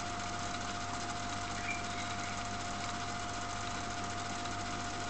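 Steady electrical hum with a constant high whine from battery-charging equipment running. A faint short chirp comes about two seconds in.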